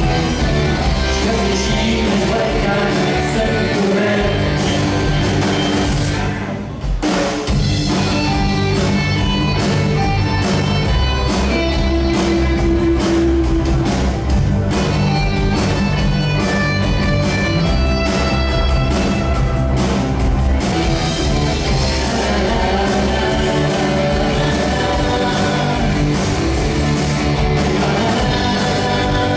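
Live rock band playing: electric guitars, bass and drum kit, with a brief drop in the bass and drums about seven seconds in.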